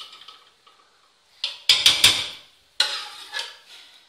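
Metal ladle knocking and scraping against metal cooking pots as masala is spooned onto the rice: a cluster of sharp clinks about a second and a half in, then two more knocks near the end.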